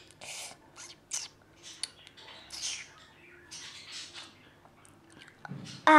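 A string of short, breathy sipping noises made by mouth, a child imitating a toy drinking. Right at the end comes a loud voiced sigh falling in pitch.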